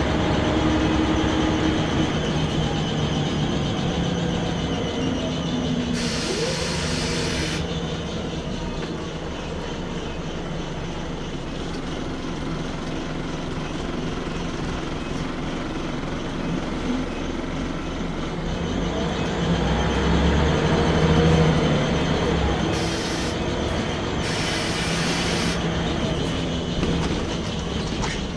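A Scania L94UB single-decker bus running, heard from inside the passenger saloon: a steady engine and drivetrain note with road noise. It grows louder and shifts in pitch about twenty seconds in. Two spells of hiss come about six seconds in and near the end.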